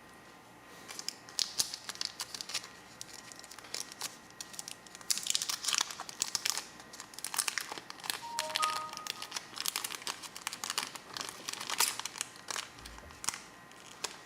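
Irregular crinkling and small clicks as gas-lighter replacement parts and tools are handled, with a few faint short tones about eight seconds in.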